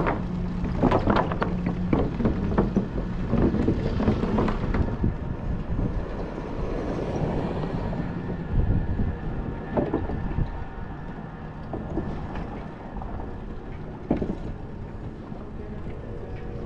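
Wind rushing over a GoPro's microphone while cycling, mixed with passing street traffic. A few sharp knocks or rattles come in the first few seconds.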